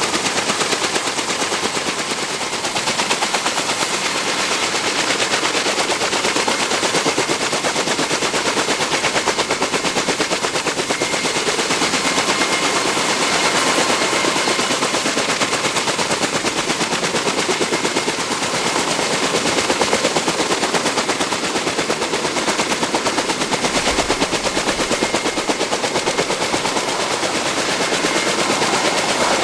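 Kaman K-MAX intermeshing twin-rotor helicopter at takeoff power during its hover check and lift-off: a loud, rapid, evenly spaced rotor-blade chop, with a thin steady whine above it.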